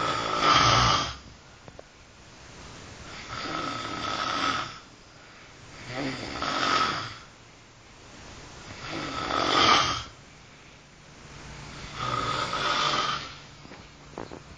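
A man snoring steadily, one snore about every three seconds, five in all, with each snore swelling and then breaking off.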